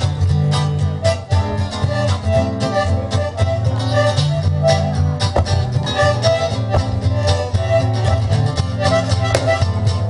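Two acoustic guitars, an archtop and a flat-top, playing an instrumental swing break with a picked melody over rhythm strumming.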